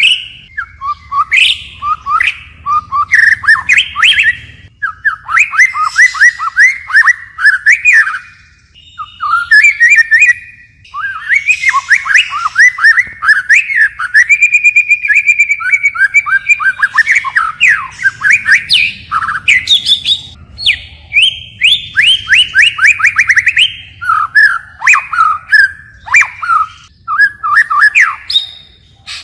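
White-rumped shama singing a long, varied song, switching phrases continually: fast runs of short downward-sweeping notes, with a steady held note about halfway through.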